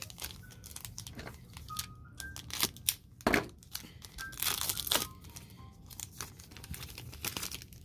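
Foil trading-card pack wrapper being crinkled and torn open by hand, a run of irregular sharp crackles.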